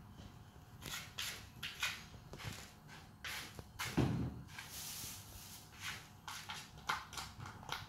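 A cat scratching and digging in cat litter in a plastic basin to bury its waste: a run of short gritty scrapes, with one louder dull thump about four seconds in.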